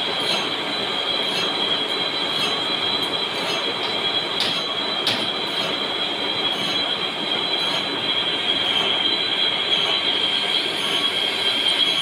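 Metalworking on a plastic injection-moulding machine's screw turning in a large lathe, with sparks flying: a steady high-pitched squeal over a noisy machine-shop running sound, with a couple of short sharp clicks around the middle.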